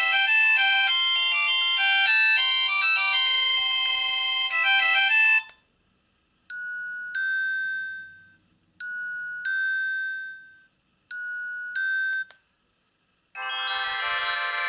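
Philips E106 feature phone's built-in ringtones playing through its small loudspeaker, one after another. A busy melody cuts off about five and a half seconds in. Then a two-note chime, the second note held, sounds three times. Another melody starts near the end.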